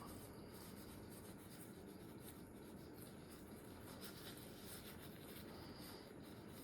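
Faint rubbing and light scratching of a paper napkin wiping down a Glock pistol part during cleaning.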